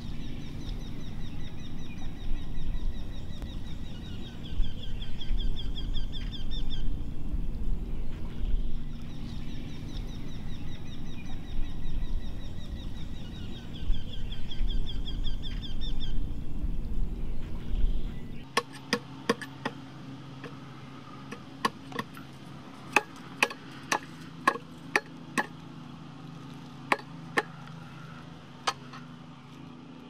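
For about eighteen seconds, a steady low drone with a repeating honk-like call above it. Then, after a sudden cut, a blade chops into a wooden stump: about fifteen sharp strikes at uneven intervals over a quiet background.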